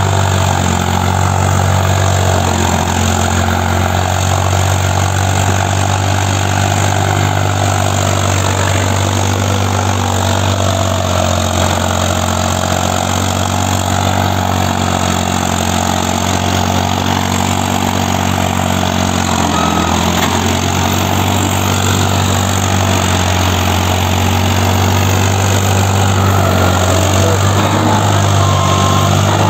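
New Holland 5500 tractor's diesel engine running steadily at a constant pitch while hauling a heavily loaded sugarcane trailer, working hard under a load heavy enough to lift the tractor's front wheels.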